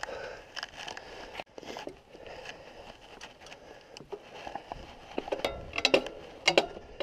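Mountain bike riding up a wet concrete slipway: tyre noise on the wet surface with scattered clicks and rattles from the bike, a low rumble coming in about five seconds in, and a quick run of sharp clacks and rattles near the end.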